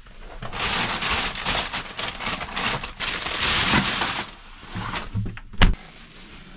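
Rustling and handling noises for several seconds, then one sharp knock about five and a half seconds in.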